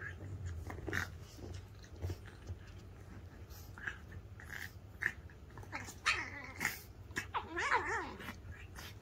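A pug puppy and a corgi play-fighting, with snuffles, mouthing and small clicks of teeth, and a wavering play growl about three quarters of the way through.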